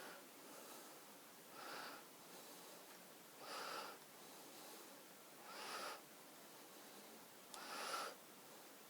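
A person breathing audibly through the nose close to the microphone: short, faint breaths, about one every two seconds.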